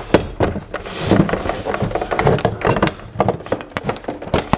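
Irregular clunks and knocks of metal on metal as a flat-screen TV, held up by hand, has its bracket fitted onto an articulating wall-mount arm.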